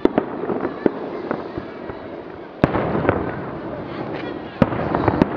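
Aerial fireworks shells bursting: a series of sharp bangs at irregular intervals, the loudest about halfway through and two more near the end, with crackling between them.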